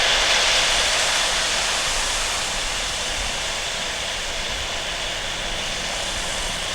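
Airbus A320-232's IAE V2500 turbofans at takeoff thrust: a steady jet rush with a faint high whine, slowly fading as the airliner departs.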